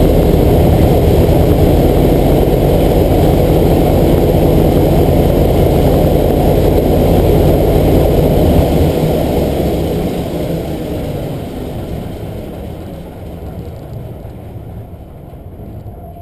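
Douglas C-47's Pratt & Whitney 14-cylinder radial engine running at run-up power with the propeller turning, heard from the wing during a post-maintenance run-up. About halfway through, the deep firing note falls away and the sound fades steadily as the engine comes down from power.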